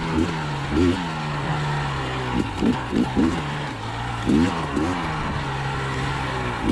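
2020 KTM 300 XC TPI's single-cylinder two-stroke engine running at a steady low pitch, with repeated quick throttle blips that rise and drop several times, a fast cluster of them about two and a half seconds in.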